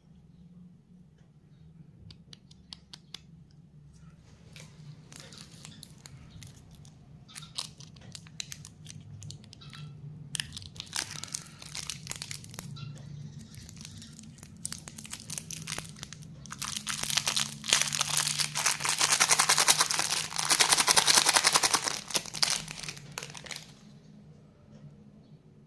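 Plastic lollipop packaging being handled and torn open. Scattered small clicks and crinkles build into a loud, dense crinkling tear in the second half, which then stops.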